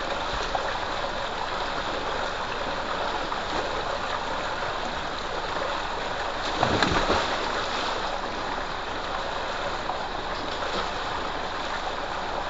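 Steady rush of water gushing from a pipe into a concrete bathing tank, with one louder splash about seven seconds in as a person plunges into the water.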